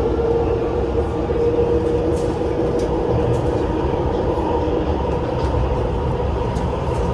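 MTR SP1900 electric train running, heard from inside the passenger car: a steady rumble with a constant hum and a few faint light clicks.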